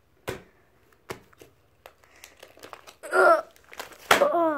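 Light taps and handling of plastic-sleeved collector albums, then two short pitched sounds about three and four seconds in, the second falling in pitch.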